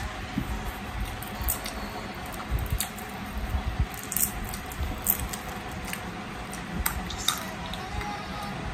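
Roasted cashews being picked out of a glass jar and eaten: scattered sharp clicks and crunches over a steady low hum.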